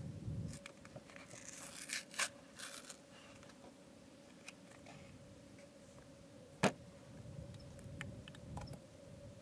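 Scattered clicks, scrapes and brief rustling of things being handled, with one sharp, louder click about two-thirds of the way through, over a faint steady hum.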